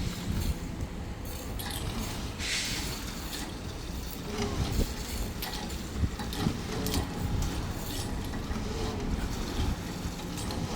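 Construction-site work noise: scattered clicks and knocks over a steady low rumble.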